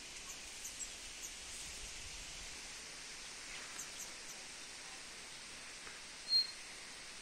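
Outdoor rural ambience with small birds chirping: scattered short high chirps and one brief high whistle about six seconds in, over a steady faint hiss.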